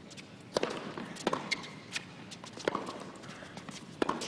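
Tennis ball being hit and bouncing on a hard court: sharp knocks coming roughly every 0.7 s, with a few more near the end.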